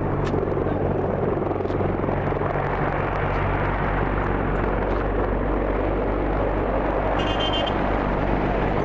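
Steady engine noise with a constant low hum under a broad rushing noise, with a brief high-pitched squeal about seven seconds in.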